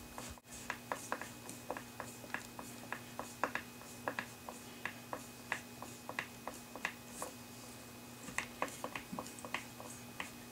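Hand screwdriver turning a screw into the wooden base of a spinning wheel: a run of small, irregular clicks, roughly two to four a second, as the screw is tightened down.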